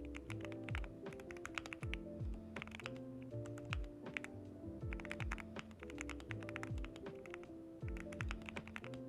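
Typing on an Akko SPR67 mechanical keyboard with Gateron Oil King linear switches: quick runs of keystrokes in bursts with short pauses between. Background music with a steady beat plays underneath.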